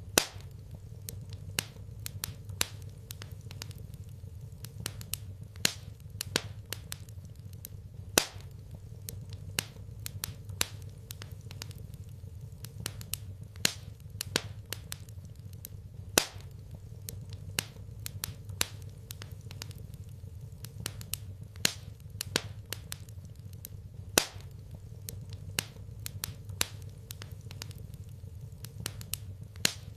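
Wood fire crackling in a fireplace: irregular sharp pops and snaps of varying loudness, several a second, over a steady low hum.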